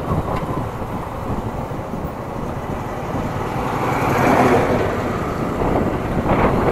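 Motorcycle riding on a road: engine and road noise mixed with wind rumbling on the rider's microphone, with a swell in the noise about four seconds in.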